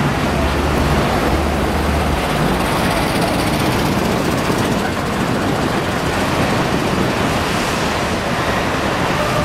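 Steady road-traffic noise from buses, vans and cars at a terminal kerb, with a low engine hum for the first couple of seconds.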